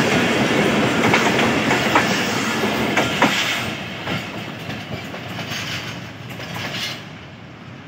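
Pakistan Railways passenger coaches running past close by, their wheels clicking over the rail joints. The clicks are loud for about three seconds, then the sound fades as the last coach goes by and the train draws away.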